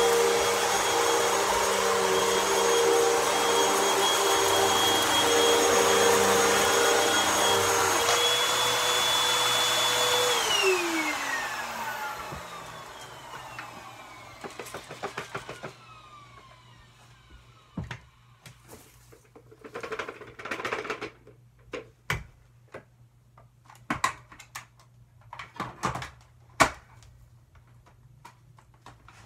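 Vacuum cleaner running steadily, then switched off about ten seconds in, its motor whine falling in pitch as it spins down over a few seconds. After that come scattered light knocks and short rustling handling sounds.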